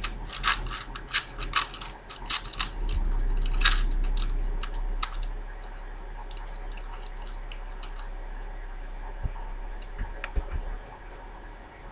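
Plastic 4x4x4 Rubik's cube being turned by hand: a quick run of clicks and clacks as the layers snap round, thinning out to occasional clicks after about five seconds, over a low steady hum.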